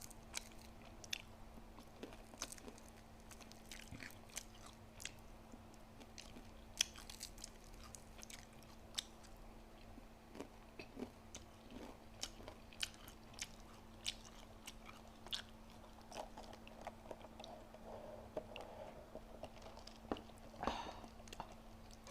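Close-up eating sounds: a person chewing and biting food, with irregular wet mouth clicks and occasional crunches, over a faint steady hum.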